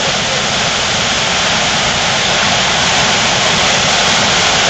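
Whitewater rapids of the Middle Fork of the Popo Agie River rushing over boulders: a loud, steady rush of water, growing a little louder toward the end.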